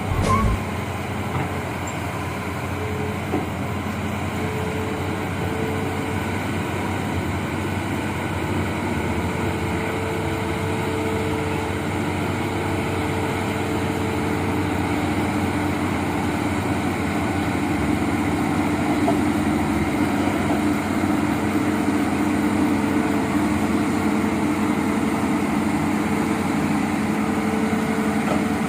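Amphibious excavator's diesel engine running steadily, a continuous drone with a brief knock right at the start.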